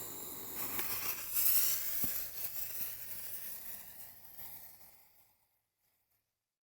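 A click, then the hiss and sizzle of burning fuses on firework canister shells, strongest early on and fading away after about five seconds.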